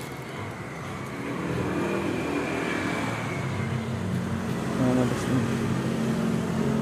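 A motor vehicle's engine running nearby, growing louder over the first couple of seconds and then holding steady.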